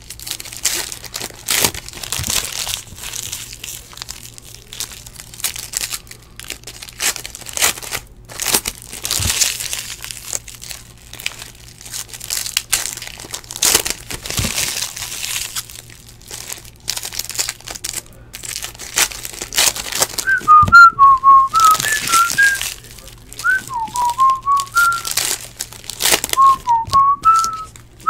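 Foil trading-card pack wrappers crinkling as Panini Playoff football packs are torn open and the cards handled, in irregular bursts. About two-thirds of the way in, someone starts whistling a tune over the crinkling.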